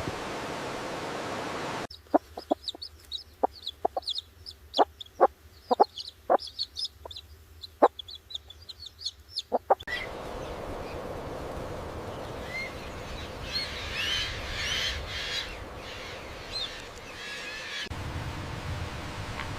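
Chickens clucking in a series of short, separate calls, with small birds chirping high above them; the clucking starts and stops abruptly. Then comes a steady outdoor hiss with a brief flurry of small-bird chirps.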